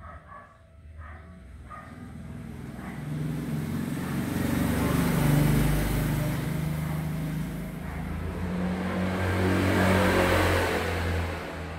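A motor vehicle's engine running close by, building up over the first few seconds and swelling twice, loudest about halfway through and again near the end before it starts to fade.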